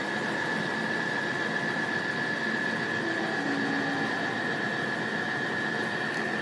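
Steady background hiss with a constant high-pitched whine throughout, and two faint short low tones a little past halfway.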